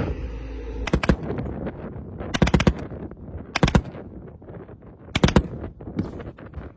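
Machine-gun fire in about five short bursts of a few rounds each, spaced a second or so apart.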